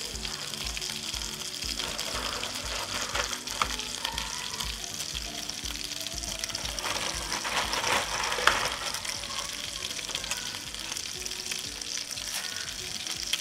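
A pot of salted, oiled water at a rolling boil on a gas stove, bubbling and hissing steadily while dry linguine is pushed down into it, with a few light clicks of the pasta against the pot.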